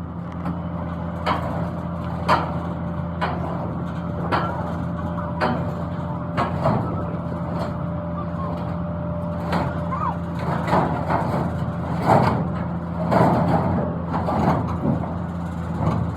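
An engine running steadily, with sharp knocks about once a second over it.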